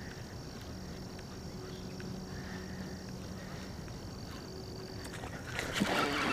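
Faint lakeside ambience: steady high-pitched calls, typical of insects and frogs, over a low hum. A louder, noisier stretch with clicks starts near the end.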